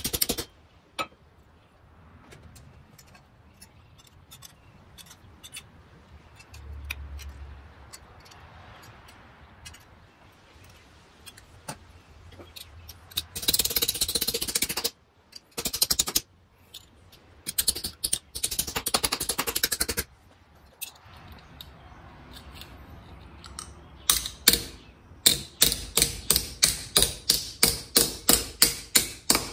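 Blacksmith's hand hammer striking steel on an anvil: scattered light taps at first, fast runs of blows about halfway through, and near the end a steady run of about three ringing blows a second.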